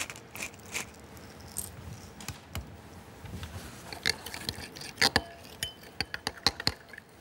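A hand pepper mill grinding a few turns over a glass bowl, then a metal spoon stirring cream in the bowl, with a run of sharp clinks against the glass from about four seconds in.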